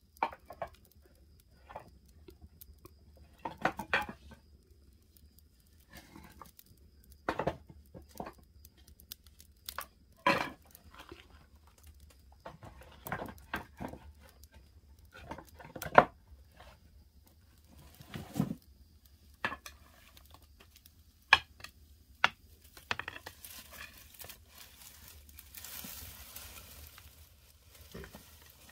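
Brushwood fire in a clay firebox crackling and popping in scattered snaps, with dry twigs rustling and snapping as they are pushed into the flames by hand. A soft hissing rush rises near the end.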